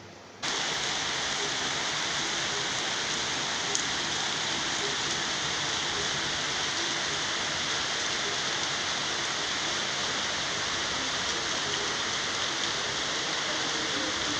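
Steady rain falling, an even hiss of drops that starts abruptly about half a second in and holds at a constant level. A single sharp tick about four seconds in.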